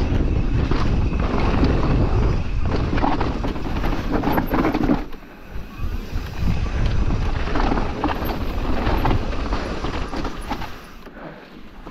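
Mountain bike riding fast down a dirt flow trail: wind on the microphone, tyres rolling over the ground and the bike rattling over bumps. The noise drops sharply about five seconds in, comes back in surges, then eases near the end.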